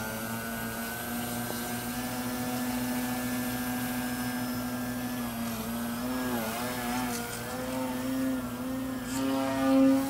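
Motor and propeller of a Yak 55 EPP foam RC airplane whining at a steady pitch, then from about halfway wavering and dipping in pitch again and again, with a louder swell near the end.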